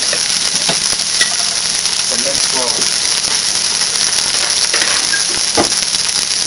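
Pork roast searing in hot olive oil in the bottom of a pressure cooker: a steady sizzle, with a few light knocks and clicks scattered through it.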